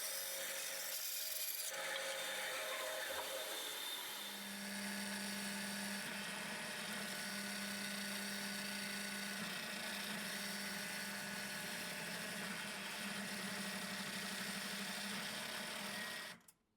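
A small power tool working wood, its motor humming steadily under the noise of the cutting or sanding. It stops abruptly near the end.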